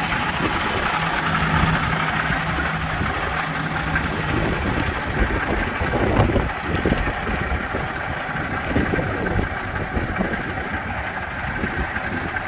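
Inside a semi-truck cab while driving: the truck's engine running steadily under road noise, with a low steady hum for the first few seconds.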